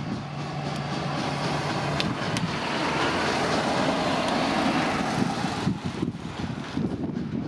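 Twin jet engines of an Airbus A320-family airliner running at low taxi power as it rolls slowly past, a steady rushing hiss. The hiss swells to its fullest about three to five seconds in, then falls away sharply shortly before six seconds.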